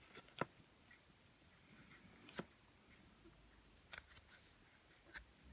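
Near silence broken by a few faint clicks and one short soft scrape, small objects being handled while shaping Play-Doh.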